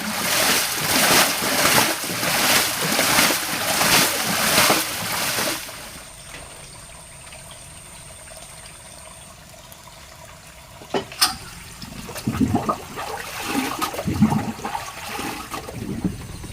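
Water splashing in a steady rhythm, about one and a half splashes a second, which stops abruptly about six seconds in. After that it is quieter, with a sharp click and a few low knocks near the end.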